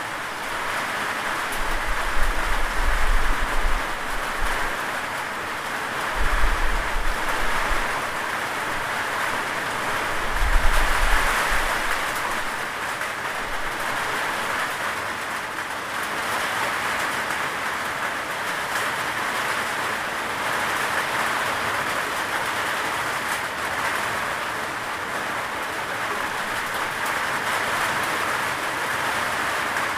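Steady rain, an even hiss, with three brief low rumbles in roughly the first twelve seconds.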